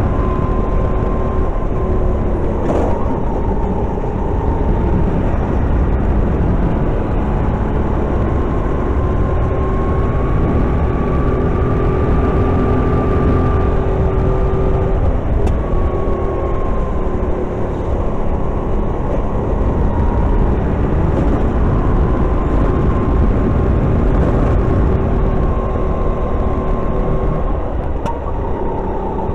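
Racing kart engine heard from on board under race load, its pitch slowly rising and falling with the throttle through corners and straights, over a heavy low rumble.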